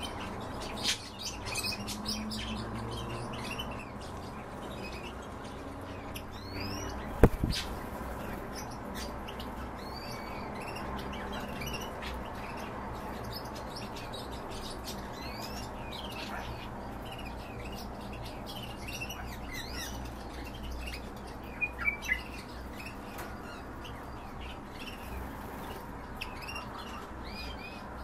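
European bee-eater calling with many short, repeated chirps. A single sharp click comes about seven seconds in.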